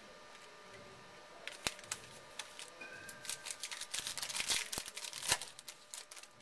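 Wrapper of a sealed trading-card pack being torn open and crinkled by hand: a run of sharp crackles and clicks starting about a second and a half in, thickest around four to five seconds, then thinning out.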